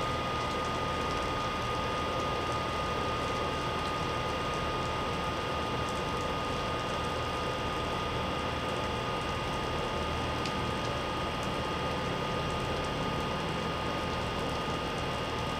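Stationary electric metro train idling, a steady hum and hiss with a constant high whine from its auxiliary equipment.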